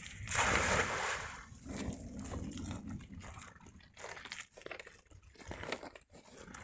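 A cast net lands on the lake with a splash about half a second in. Then come quieter scattered crunches and rustles as the net's hand line is hauled in and feet shift on the stony bank.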